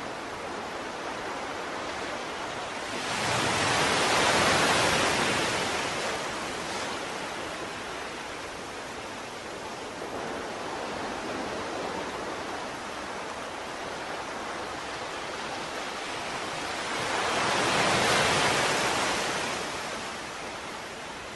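Ocean waves washing in over a steady rush of surf, with two slow swells, one a few seconds in and another near the end.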